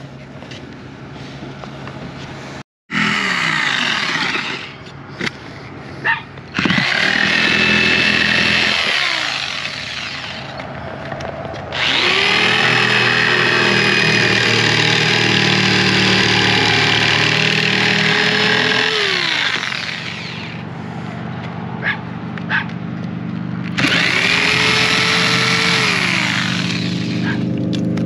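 Corded Skil jigsaw cutting through a shuttle bus's fiberglass roof, run in four separate cuts, the longest about eight seconds in the middle. The motor whine climbs as each cut starts and drops as it stops, with a few short knocks in the pauses between cuts.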